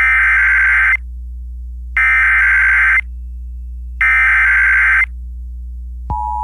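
Emergency Alert System broadcast of a winter storm warning: the SAME digital header sent three times as one-second bursts of warbling data tones with a one-second gap between them. Near the end the steady two-tone attention signal starts.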